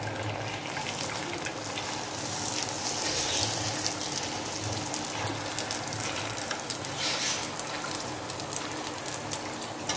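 Hot oil sizzling as gol gappa puris deep-fry, with a spoon ladling the hot oil over them so they puff up, a steady splashing hiss. Short sharp crackles of spitting oil come more often in the second half.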